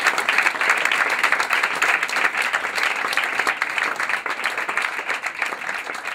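Small audience applauding, a dense patter of hand claps that gradually fades away.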